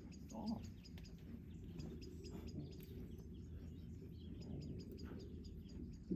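Faint chirping of small birds, many short high calls scattered throughout, over a low steady outdoor rumble.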